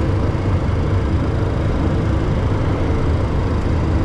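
Steady cockpit noise of a Cessna Citation II business jet on final approach: engine and airflow noise, heaviest in the low end and unbroken.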